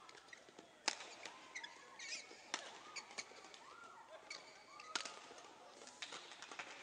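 Badminton rally: sharp racket-on-shuttlecock hits every second or two, the loudest about a second in, at about two and a half seconds and about five seconds in, with short squeaks of players' shoes on the court floor between shots.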